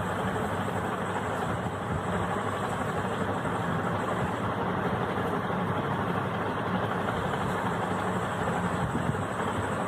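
Steady machine-like drone, unbroken and even throughout, with no distinct knocks or clicks.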